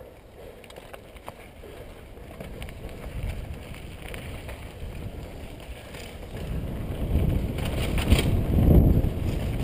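Downhill mountain bike rolling down a dirt trail, heard from a helmet-mounted camera: tyres on dirt and gravel, the bike rattling, and wind rushing over the microphone. It gets much louder about six seconds in as the bike gathers speed.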